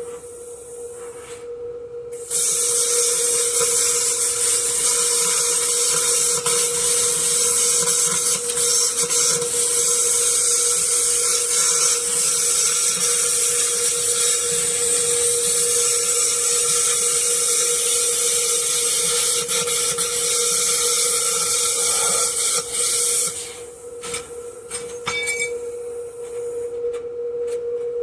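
A high-pitched power tool runs steadily for about twenty seconds. It starts a couple of seconds in and cuts off near the end, over a steady hum.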